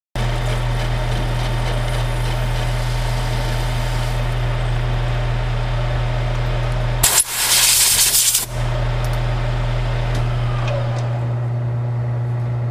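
Metal lathe running, turning the outside diameter of a clamped stack of thin washer stock, with a steady motor hum. About seven seconds in there is a loud burst of noise lasting about a second and a half, and near the end the spindle winds down to a stop.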